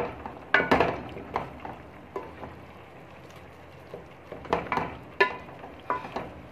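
A wooden spoon stirring chopped turnips and knocking against the side of a metal pot, with a faint sizzle of the pieces frying in oil and spices. The knocks come in irregular clusters, some with a short metallic ring, with a quieter spell in the middle.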